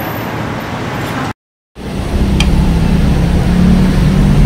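Steady background noise, broken by a short silent gap about a second and a half in, then a loud steady low hum of a running engine.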